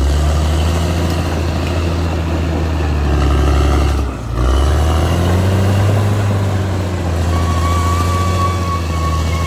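Diesel engine of a Caterpillar D6R XL bulldozer running steadily at work, with a brief dip about four seconds in. A steady high-pitched whine joins it about seven seconds in.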